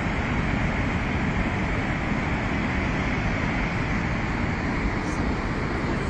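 Niagara Falls: the steady, even rush of a large waterfall's falling water, without a break.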